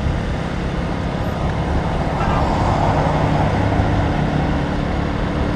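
Motorcycle riding at steady speed: a low, even engine hum under road and traffic noise, with a vehicle passing close alongside around the middle.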